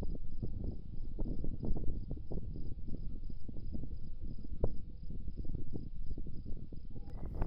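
An insect chirps in an even rhythm, a few pulses a second, over a low, irregular crackling rumble.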